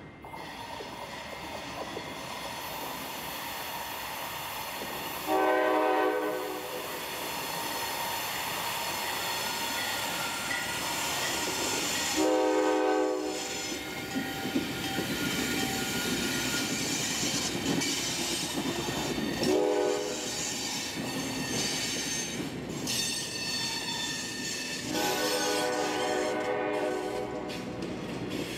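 A diesel freight locomotive's horn sounds four blasts of several notes, long, long, short, then a drawn-out long: the pattern of a grade-crossing signal. Between the blasts the passing train's wheels run on the rails with a steady rumble and a thin high squeal on the curve.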